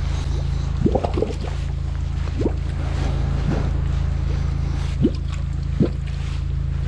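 Steady drone of a high-pressure drain jetter's engine while its root-cutter nozzle jets water down a blocked stormwater pipe. Water gurgles up through the flooded pit in short bubbling pops, about six of them.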